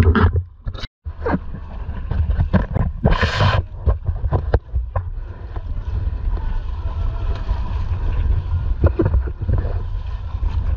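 Wind buffeting the microphone with a steady low rumble, over water slapping and splashing against a kayak's hull, with one louder splash about three seconds in. The sound drops out for a moment about a second in.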